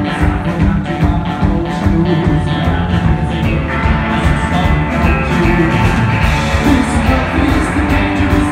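Live rock band playing: two electric guitars, electric bass and a drum kit, with a steady driving beat.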